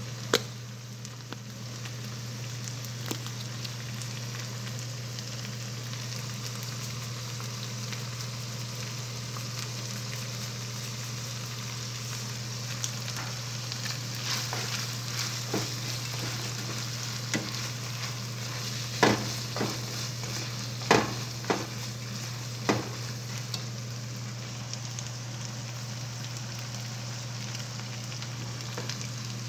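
Ground meat sizzling as it browns in a nonstick frying pan, over a steady low hum. In the second half a plastic spatula scrapes and knocks against the pan several times.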